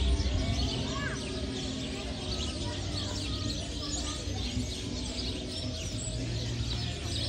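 Many birds chirping and twittering at once, a dense, continuous chorus, over a low steady background rumble.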